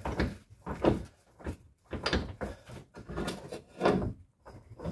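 A series of irregular knocks and clunks, about seven in all, from a subframe bolt and its spacer being worked into place by hand under the car.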